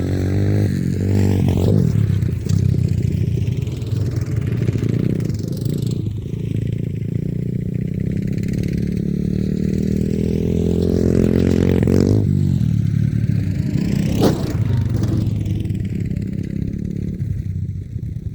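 Small off-road vehicle engine revving, its pitch climbing and falling back several times as it rides, with one sharp knock about fourteen seconds in.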